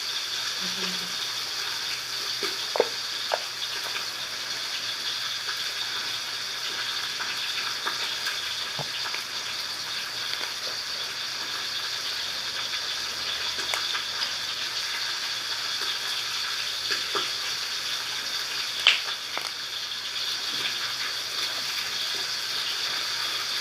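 Foam slime being squeezed and kneaded by hand, a steady fine crackling with occasional sharper pops, the loudest about three seconds before the end.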